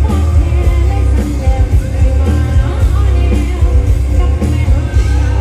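Live band music with a voice singing over it, a heavy bass and a steady drum beat, loud throughout.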